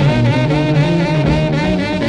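An early rock and roll boogie record plays from a 45 rpm vinyl single, in an instrumental passage of the band with no singing.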